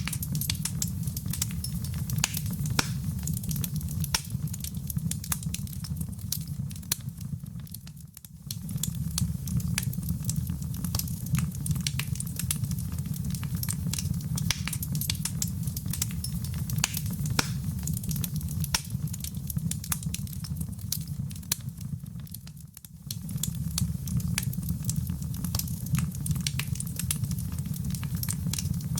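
Fireplace fire crackling, with frequent sharp snaps over a low steady rumble. The sound dips briefly about eight seconds in and again later on.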